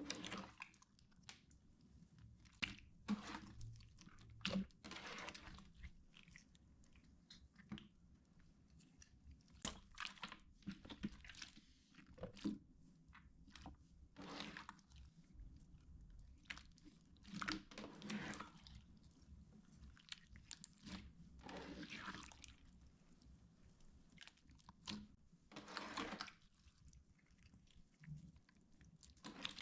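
Water slime being squished and poked by hand, giving off irregular, quiet crackling and popping bursts, some short and sharp, some drawn out for about a second.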